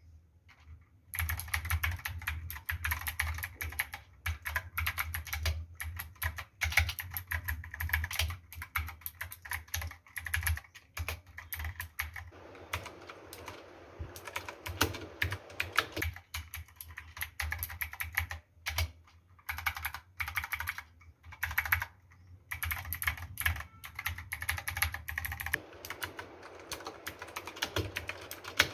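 Typing on a foam-modded Cosmic Byte CB-GK-23 Artemis mechanical keyboard fitted with PBT keycaps: a fast, irregular run of key clacks that starts about a second in and breaks off briefly a few times.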